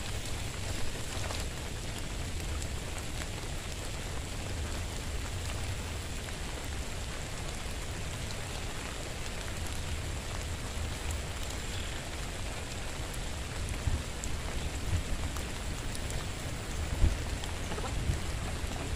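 Steady rain falling, an even hiss throughout, with a few soft knocks near the end.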